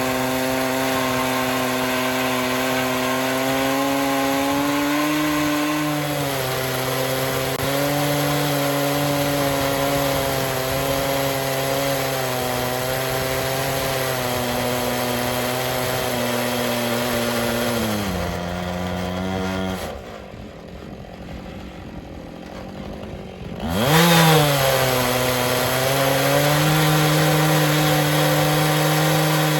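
Stihl chainsaw in an Alaskan chainsaw mill running at steady full throttle while ripping a slab lengthwise through a white oak log. About 18 s in, the engine pitch sags. It then falls to a quieter idle for a few seconds, revs sharply back up, and settles into cutting again.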